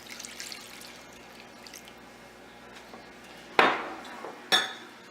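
Chicken broth being poured and stirred into a saucepan of roux and milk, a faint liquid sound, then two sharp knocks on the pan about a second apart, the second one ringing.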